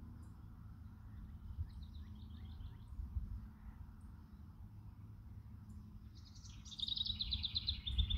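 Songbird singing in quick trills of repeated high notes: a short trill about two seconds in and a longer, louder one near the end, over a steady low rumble.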